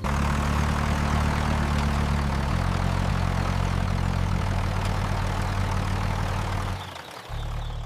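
A steady low drone with a rushing hiss over it. The low pitch shifts about two and a half seconds in and drops away briefly near the end.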